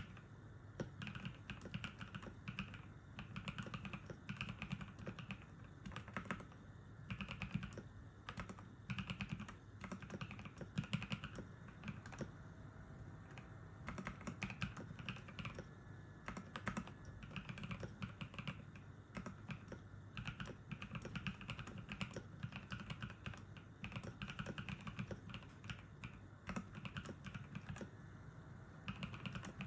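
Continuous typing on a Cyberboard mechanical keyboard with Novelkeys x Kailh Cream linear switches lubed with Krytox 205g0, milk-style keycaps and Durock stabilizers: a steady stream of key clicks and bottom-out clacks.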